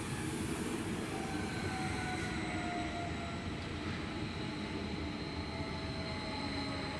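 Stadler KISS double-decker electric multiple unit rolling into the station and slowing, a steady rumble of wheels on rail with several thin whining tones slowly falling in pitch.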